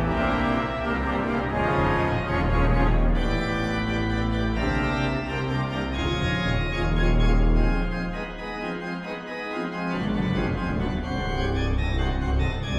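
Pipe organ playing sustained full chords over a deep pedal bass. The low bass drops away for a second or two past the middle, then comes back in.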